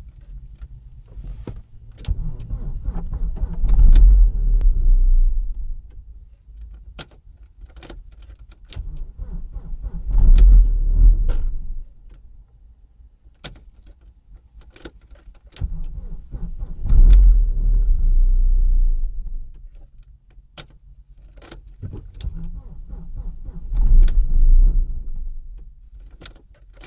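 Audi A4 B5's 1.8-litre turbo four-cylinder (AEB) cranked on the starter four times, each attempt lasting a few seconds, without catching: the engine won't start. Sharp ticks are heard between the attempts.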